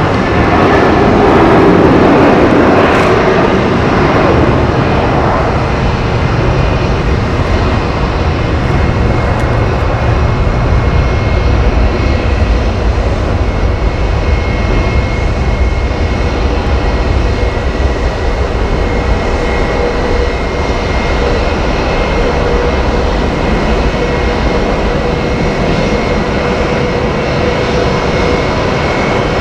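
Airbus A320's twin jet engines at takeoff thrust through the takeoff roll and climb-out: a steady heavy rumble, loudest in the first few seconds, with a faint steady whine over it.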